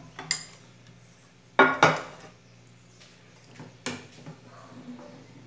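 A few sharp clinks and knocks of kitchenware: a glass baking dish handled on the counter and a metal spoon knocking in a pan of sauce. The loudest is a close pair of knocks about one and a half seconds in.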